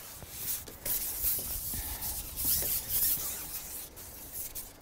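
Wind blowing in gusts across the microphone: a rushing hiss with a low rumble, surging and easing.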